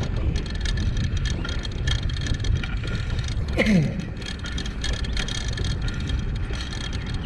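Wind buffeting the microphone and steady rumbling road noise while riding a bike, with one brief falling tone about halfway through.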